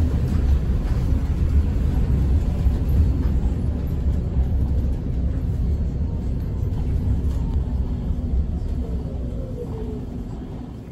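Steady low rumble of a moving vehicle heard from inside its cabin, easing off a little over the last few seconds.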